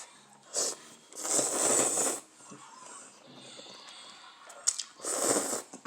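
Spicy instant noodles being slurped in three bursts, the middle one the longest, with quieter chewing between.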